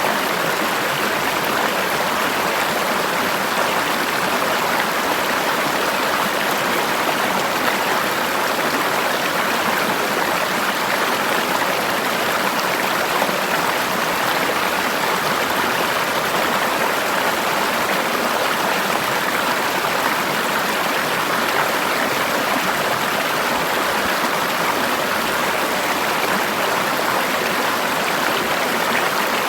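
Forest river water running over rocks, a steady rushing and splashing.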